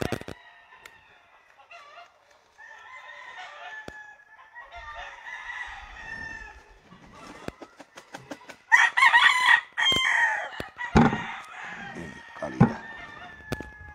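Roosters crowing: several faint drawn-out crows through the first half, then louder crowing about nine seconds in. There are also a few sharp clicks and knocks.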